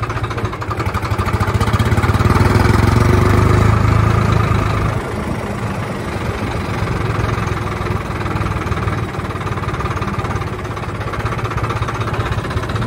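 Farmtrac tractor's diesel engine running while driving, heard from the driver's seat; it gets louder about two seconds in as it speeds up, then eases back to a steady run after about five seconds.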